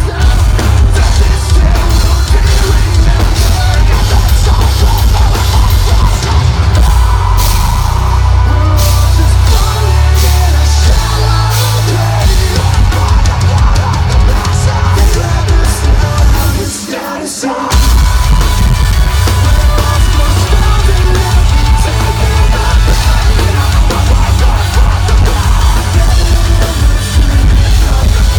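Live metalcore band playing loud, with heavy drums, distorted guitars and vocals. The low end drops out briefly about two-thirds of the way through before the full band comes back in.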